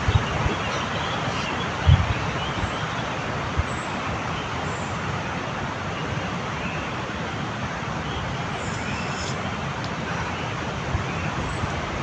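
Steady rushing noise of stormy wind through the forest trees, with a few low buffets of wind on the microphone about two seconds in.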